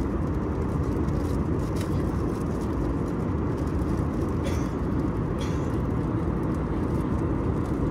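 Steady cabin noise of an Airbus A320 in flight: a low, even rush of airflow and engines. A few faint short ticks sound over it.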